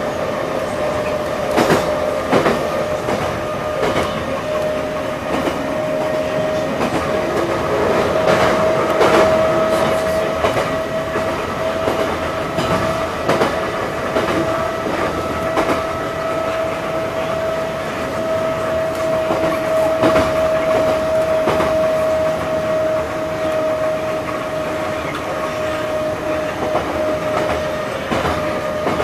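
Old Moscow Metro Ezh-series train running, heard from inside the car: a steady rumble with a held whine from the drive and irregular clicks of the wheels over rail joints.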